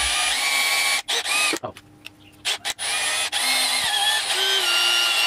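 Cordless drill boring a hole through a thin plastic plate, its motor whine shifting in pitch as the bit bites. It runs, stops about a second in, gives a few short bursts, then runs steadily again from about three seconds in.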